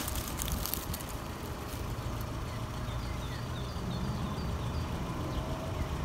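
Steady low rumble, with a bird giving a quick run of faint, high chirps about halfway through.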